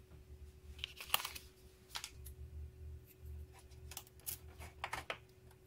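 Irregular small clicks and rattles of plastic and metal from hands working RAM SIMMs in and around the memory sockets of a Macintosh LC logic board, over a faint steady hum.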